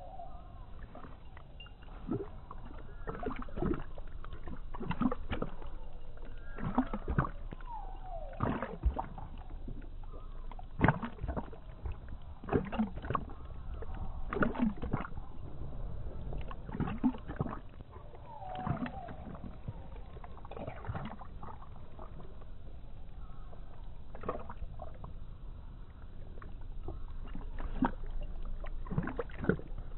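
Dog lapping water from a trickling garden hose: irregular wet laps and splashes, several a second at times, over the low wash of the running water.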